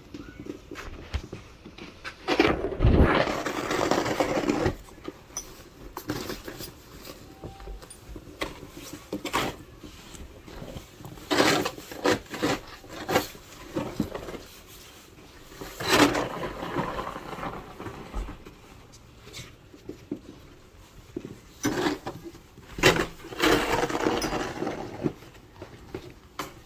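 Scattered knocks and clatter of hard objects being handled, with three longer scraping stretches, the longest starting about two seconds in and lasting over two seconds.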